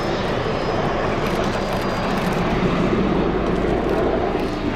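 Bell-Boeing CV-22B Osprey tiltrotor flying past, its twin turboshaft engines and big proprotors making a loud, steady noise that grows slightly louder.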